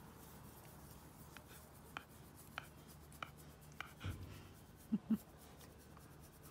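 Black Labrador panting in the heat, faint short breaths at about one every half second. A soft low thump follows, then two short low sounds in quick succession near the end.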